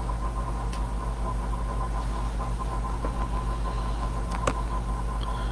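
Steady low hum with a faint high steady tone above it, broken by a few faint clicks.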